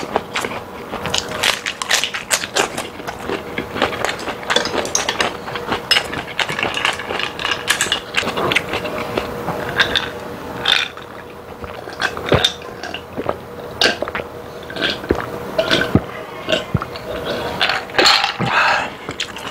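Close-up chewing and wet mouth sounds of eating a lettuce-wrapped bite, dense clicks and smacks. About halfway through comes a drink from a glass of ice.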